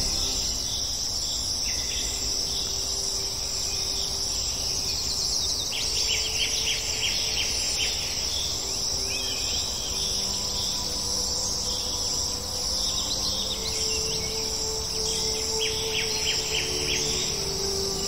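Steady high-pitched insect chorus, with two runs of quick, repeated bird chirps, one about six seconds in and one near the end.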